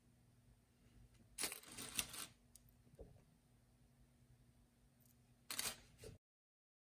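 Tiny plastic mini building bricks clicking and clattering against each other and the wooden table in two short clusters, about a second and a half in and again near the end, then the sound cuts off suddenly.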